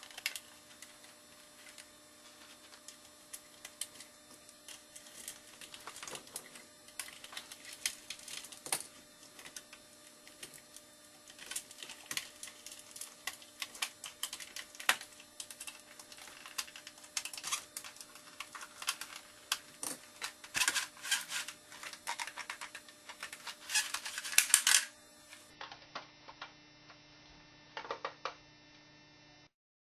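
Irregular sharp clicks and taps, like small hard plastic parts being handled, over a faint steady hum. The clicks come thickest just before a cut about 25 seconds in; after it there are only a few.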